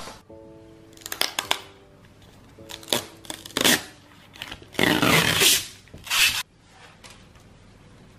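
Plastic film and paper backing being peeled off a diamond painting canvas: a series of crinkling, crackling tears, the longest and loudest lasting about a second in the middle.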